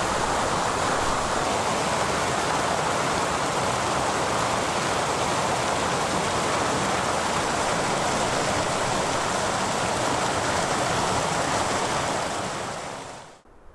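Small waterfall on the Black River: water pouring in sheets over a rock ledge and splashing into the pool below, a steady rush that fades out near the end.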